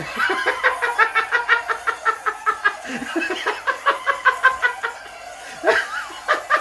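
Rapid high-pitched cackling laughter: a quick string of short notes about five a second, breaking off around the three-second mark and starting up again, with a drawn-out squeal just before the end.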